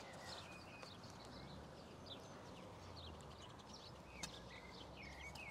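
Near silence: faint outdoor ambience with scattered short bird chirps, and a single soft knock about four seconds in.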